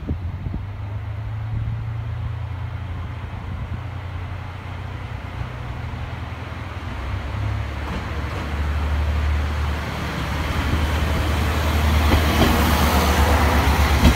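KiHa 54 diesel railcar pulling away from the station and approaching, its diesel engine droning low under load and growing steadily louder. The engine note shifts about halfway through, and wheel and rail noise build up as the railcar passes close near the end.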